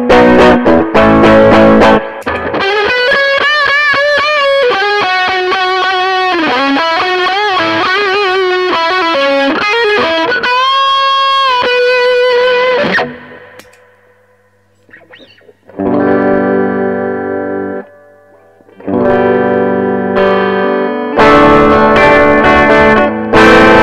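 Electric guitar played through a Mesa Boogie Recto-Verb 25 tube combo amp: chords strummed, then a single-note lead line with string bends and vibrato. After a short pause about 13 seconds in, chords are struck again in several short bursts.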